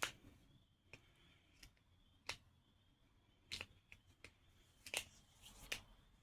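Irregular sharp clicks, about nine in six seconds, from a small fidget toy being handled and clicked.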